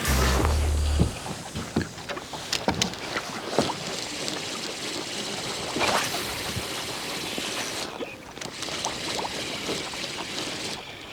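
Sea water lapping and splashing around a small boat, with wind on the microphone and scattered short splashes. A music sting fades out about a second in.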